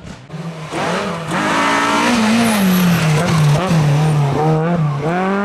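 Renault Clio rally car's four-cylinder engine approaching at race pace, loud, its revs dropping and rising repeatedly as it brakes and works through the hairpin, then climbing steeply near the end as it accelerates out.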